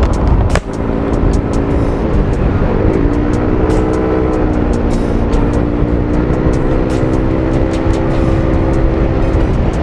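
Yamaha Aerox scooter's single-cylinder engine running through a Navin aftermarket racing exhaust, its pitch rising about three seconds in and then holding steady.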